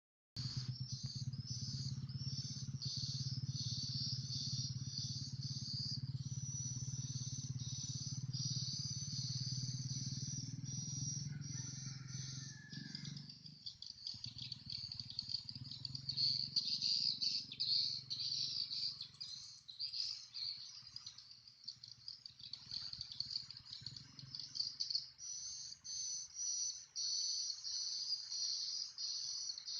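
Insects, likely crickets, chirping in a steady pulsing rhythm of about two chirps a second, over a low steady hum that fades out about halfway through.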